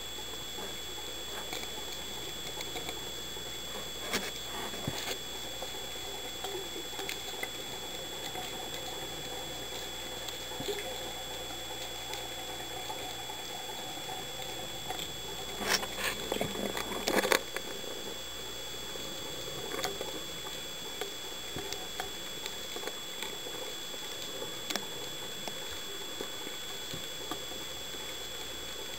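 Underwater ambience heard through a camera's waterproof housing: a steady hiss with a faint constant high whine and scattered crackling clicks, and a cluster of louder clicks and knocks about 16 to 17 seconds in.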